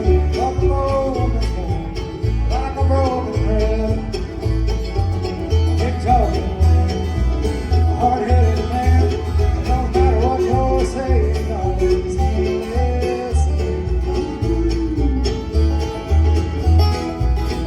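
Bluegrass band playing live, with banjo and guitar over a steady bass beat.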